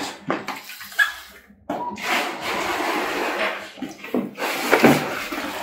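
Cardboard toy box being handled: the inner tray scraping as it slides against its cardboard sleeve, with a few sharp knocks, the loudest near the end.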